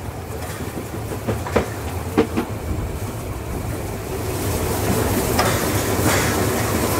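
Metre-gauge steam train, locomotive 99 7245 and its coaches, running along the track, heard from the open balcony of the first coach: a steady rumble of the running gear, with sharp wheel clicks over the rails about one and two seconds in. A hiss grows louder from about four seconds in, with a few more clicks.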